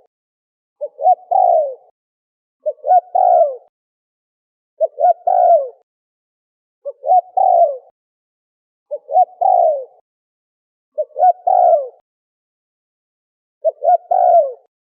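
Spotted dove (terkukur) cooing. The call repeats seven times, about every two seconds, with silence between. Each phrase is two or three short coos run into a longer falling coo.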